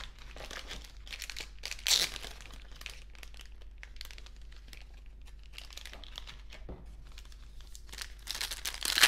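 Foil wrapper of a sealed baseball card pack crinkling as it is handled. There is a louder burst of crackling about two seconds in, and the crinkling grows busier and louder near the end.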